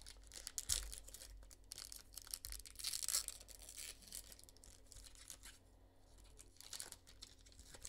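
Foil baseball-card pack being torn open and crinkled by hand, in faint scattered bursts of rustling, busiest around three seconds in.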